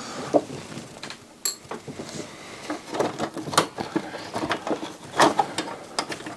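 Scattered small clicks and light knocks of hands working inside an opened stereo receiver, pulling wire connectors off a circuit board. The clicks are irregular, with the sharpest ones about three and a half and five seconds in.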